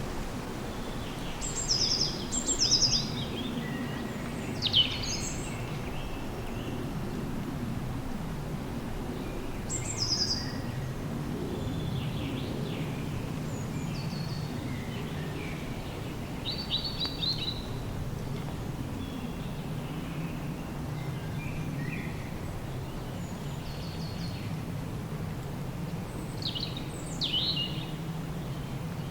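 Birds chirping and calling now and then, in short high trills, over a steady low rumble of background noise.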